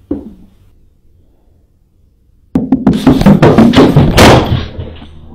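A single sharp knock, then about two and a half seconds in a sudden, very loud burst of rapid heavy thumps and bangs lasting about two seconds, dying away near the end.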